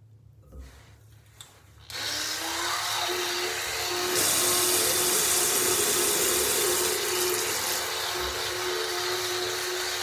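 A small electric motor switches on about two seconds in. Its hum rises briefly in pitch as it spins up, then holds steady under a loud hiss, which grows louder and brighter about two seconds later, as if switched to a higher setting.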